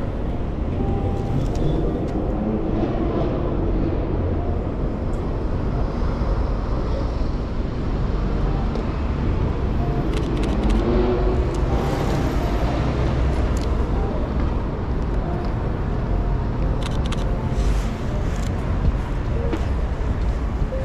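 City street ambience: a steady low rumble of road traffic, with a few scattered clicks.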